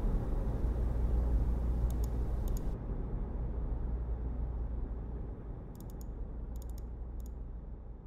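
A low, steady background rumble slowly fading out, with a few faint clicks about two seconds in and a cluster of them near the end.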